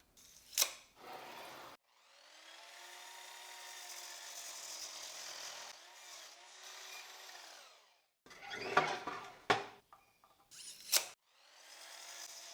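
Power saw cutting pine board to length. The motor runs for about six seconds, its pitch rising and then falling away. A few sharp knocks of wood being handled follow, then a second cut starts near the end.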